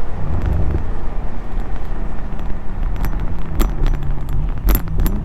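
2020 BMW M8 Competition's twin-turbo V8 running through its standard M Performance exhaust, heard from the cabin with the windows down. A few sharp exhaust pops come from about three seconds in and again near the end.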